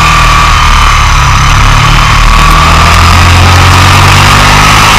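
Sports motorcycle engine running at fairly steady revs at speed on track, picked up by a low-mounted onboard camera, with heavy wind and road noise over it.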